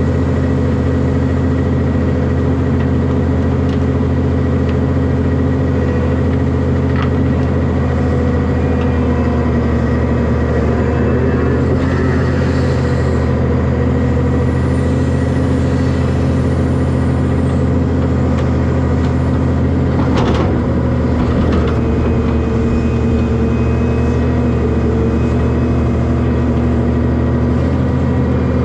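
Heavy diesel engine running steadily at a constant speed, with a brief knock about twenty seconds in.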